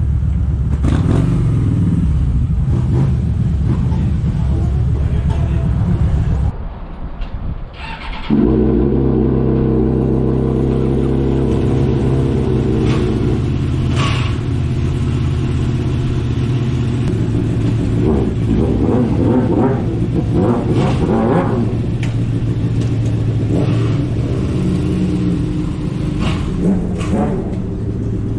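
Kawasaki Vulcan 1700 Vaquero's V-twin engine running steadily on the road at cruising speed. The sound dips for a couple of seconds about a quarter of the way in, then the steady engine drone returns.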